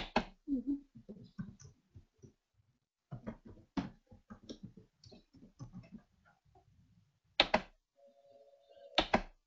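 Computer keyboard typing in quick, irregular clicks for about six seconds, then two louder single clicks about a second and a half apart, with a brief steady hum between them.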